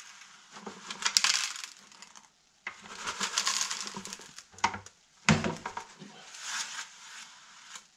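Gold pan being worked: water and gravel swishing and grating around the pan in three washes, with a few sharp clicks of stones against the pan.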